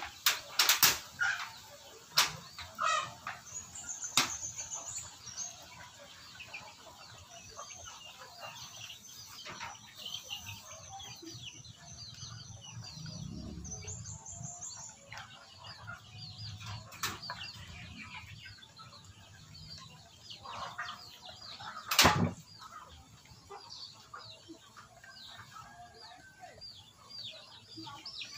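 Birds chirping on and off, with a few sharp knocks in the first seconds and one loud knock about three-quarters of the way through.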